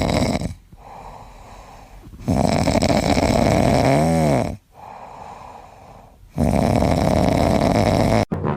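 A pet snoring in a slow rhythm: three loud snores, the last two each about two seconds long, with quieter breathing between them.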